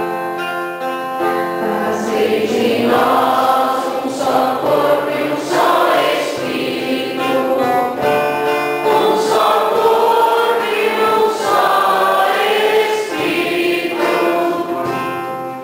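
A group of voices singing a church hymn together in long held notes.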